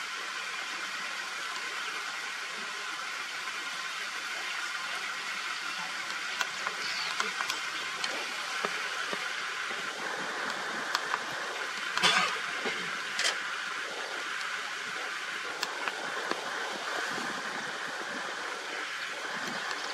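Steady outdoor hiss of background ambience, with scattered faint clicks and a brief louder noise about twelve seconds in.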